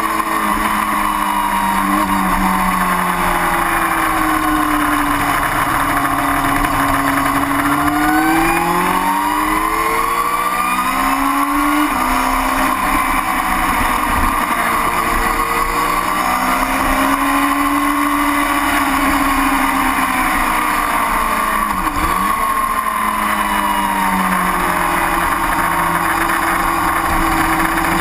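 Sportbike engine heard from a camera mounted on the bike, its pitch rising and falling with throttle and speed through the corners, with a quick drop and recovery about three quarters of the way through, under a steady rush of wind noise.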